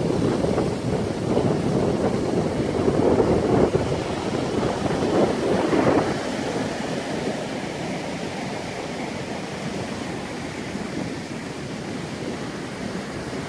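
Ocean surf breaking and washing up a sandy beach, with wind noise on the microphone. The rush is louder for about the first six seconds, then settles to a steadier, softer wash.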